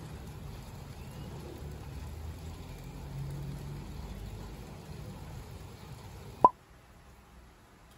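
Steady rain falling, an even hiss with some low rumble, which ends abruptly about six and a half seconds in with a single sharp click.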